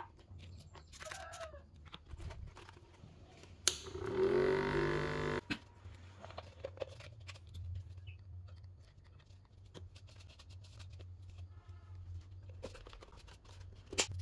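A small DC motor, wired to a 9-volt battery inside a plastic bottle, starts with a click a little under four seconds in. It whirs up in pitch, runs for about a second and a half, then cuts off suddenly.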